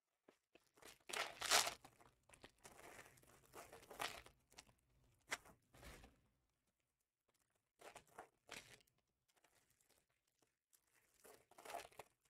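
Trading card pack wrappers being torn open and crinkled by hand, in several short bouts of tearing and crackling with pauses between. The loudest tear comes about a second and a half in.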